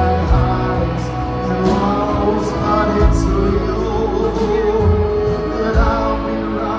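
A live band playing a song, with a moving bass line under held melodic notes.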